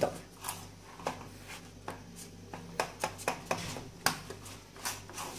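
Hands pressing and patting a buttery crushed-biscuit crumb base into a metal springform pan, giving scattered soft taps and knocks against the pan, over a low steady hum.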